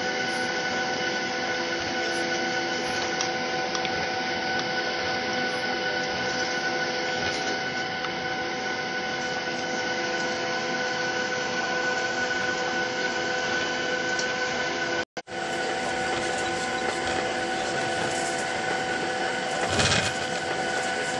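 Boeing 737-900ER's CFM56-7B jet engines at taxi power heard from the cabin over the wing: a steady whine of several held tones over an even rushing hum. A short thump near the end as the airliner rolls along the taxiway.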